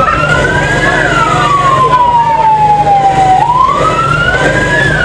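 Siren wailing in a slow cycle: the pitch climbs to a peak about a second in, slides slowly down, then climbs again from about three and a half seconds, one rise and fall roughly every four seconds. A steady low hum runs underneath.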